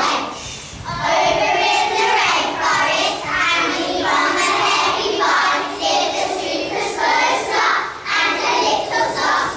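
A group of young children singing a song together, in phrases with short breaks between them.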